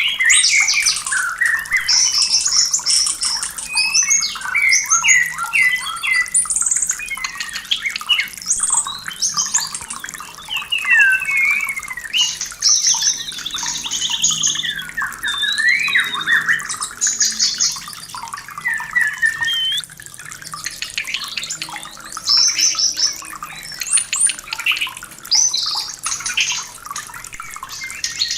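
White-rumped shama (murai batu) singing a fast, varied song of clear whistles, slurred glides and rapid trills, with barely a pause. This is the song of a bird in breeding condition.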